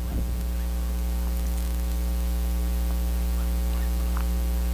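Steady electrical mains hum from the sound system, with a buzz of evenly spaced overtones, getting slightly louder over the span. There are a few faint small clicks.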